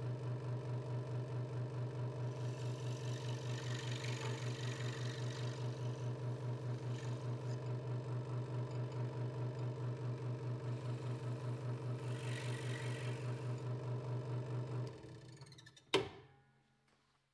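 Hegner Multicut 2S scroll saw running with a steady hum and a fast, even pulse from the reciprocating blade, with a hiss at times as the blade cuts through the wood. The saw stops about 15 seconds in and runs down, followed by a single sharp knock, the loudest sound.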